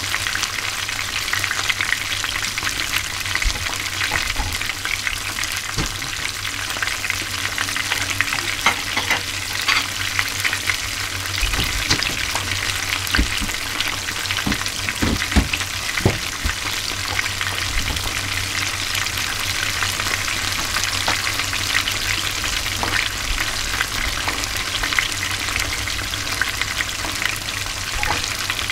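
Small chika (Japanese surf smelt) deep-frying unbattered in hot oil: a steady, dense sizzle and crackle. A few dull knocks come about halfway through.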